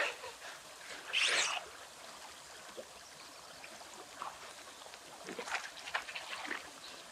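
A hooked rainbow trout splashing at the surface as it is led into a landing net in shallow water: one short splash about a second in, then a flurry of small splashes and water churning near the end.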